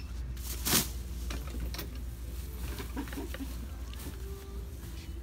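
Clothes being pushed into a thin plastic shopping bag: one loud rustling crush about a second in, then scattered lighter rustles and clicks. Faint voices in the background.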